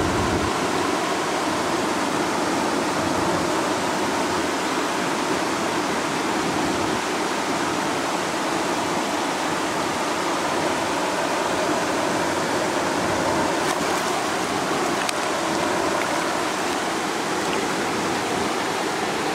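Steady, even rush of river water spilling over a low weir, holding the same level throughout.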